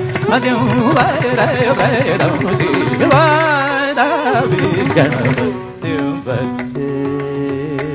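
A male Carnatic vocalist sings a wordless melismatic run with wide, wavering gamaka ornaments over drum strokes. About six seconds in the voice stops, and steady held accompanying tones carry on with a smaller wavering melodic line.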